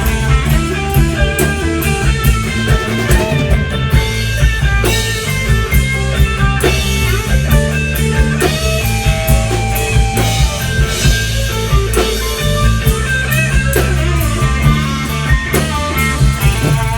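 Instrumental break of a rock song: a guitar plays a bending melodic lead over bass and a steady drum-kit beat.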